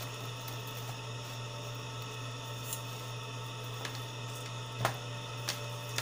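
Steady low electrical mains hum, with one light knock near the end.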